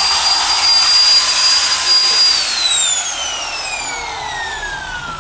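Total TIW10101 impact wrench running free with no load, a steady high whine with no hammering. A couple of seconds in the trigger is released and the motor coasts down, its pitch falling steadily as it fades.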